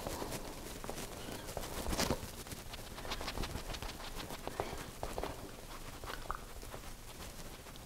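Makeup sponge dabbing liquid foundation onto the face: a run of soft, irregular pats, several a second.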